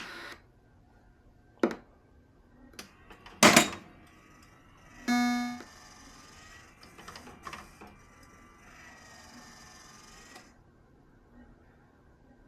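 Williams Earthshaker pinball machine powering up: a sharp click, then a few knocks and a louder burst. About five seconds in comes a short electronic tone, followed by faint game sounds that stop a little after ten seconds in.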